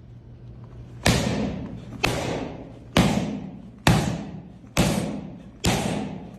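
Hard boxing punches landing in a steady rhythm, six hits about one a second, each with a sharp crack and a tail that fades over most of a second.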